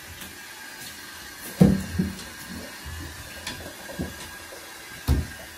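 Hands lathering and rubbing shampoo into an Alaskan malamute's soaked coat, with soft wet rubbing sounds. There are a few short dull thumps; the loudest comes about one and a half seconds in, a smaller one follows just after, and another comes near the end.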